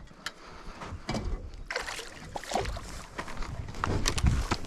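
Water sloshing, with irregular knocks and rustles on a small boat, while a hooked barramundi is brought in.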